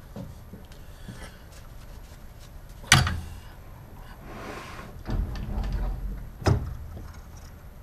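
Workshop handling noises: a sharp knock about three seconds in, a low rumbling scrape a couple of seconds later, and a second sharp knock soon after.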